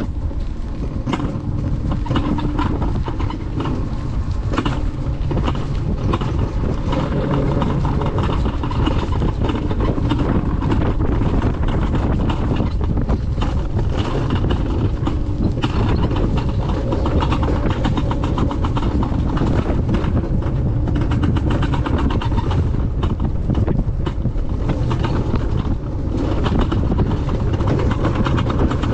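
Alpine coaster sled running along its track, a steady low rumble with a constant rattling clatter of its wheels on the rails.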